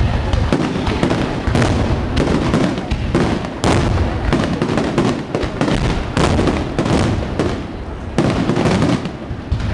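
Aerial fireworks shells bursting in a dense, overlapping run of bangs, with a louder report about once a second over a continuous low rumble.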